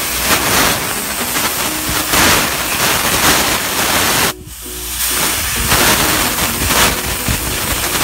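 Loud, steady rushing hiss that breaks off briefly about four seconds in, with faint background music underneath.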